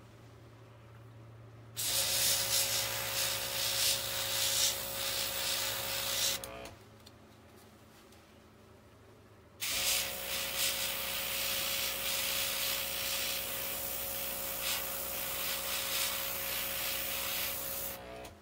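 OPAWZ airbrush spraying temp-ink in two long bursts, about five seconds and then about eight seconds: an even hiss of air with a steady hum under it.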